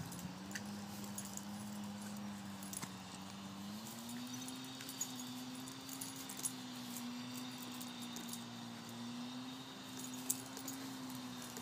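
A steady low hum that steps up slightly in pitch about four seconds in, with faint scattered jingling clicks.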